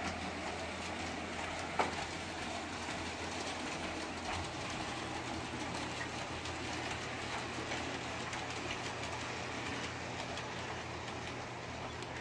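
Tweetsie Railroad G scale model train running around its track: a steady running noise with a low hum and light wheel clicks over the rail joints, and one sharper click about two seconds in.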